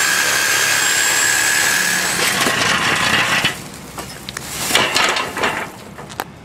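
Electric power saw cutting through a steel fence section, running at a steady whine and stopping about three and a half seconds in, followed by a few knocks.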